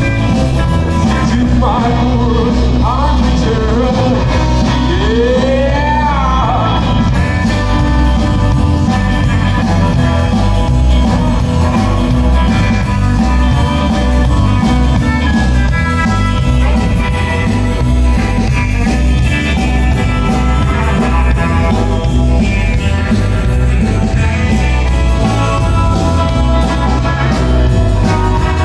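Live rock band playing on electric guitars and drum kit, with a melodic line bending up and down in pitch a few seconds in.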